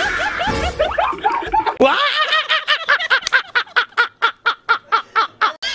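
Cackling laughter: a jumble of laugh sounds, then from about two seconds in a fast, evenly paced cackle of about five rising-and-falling 'ha' pulses a second.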